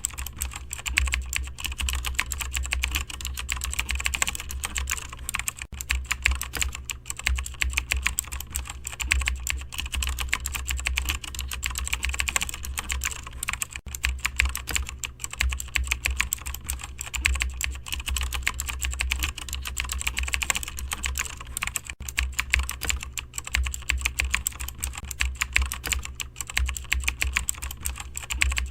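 Continuous fast typing on a computer keyboard, a dense run of keystroke clicks with no pause, over a low steady hum.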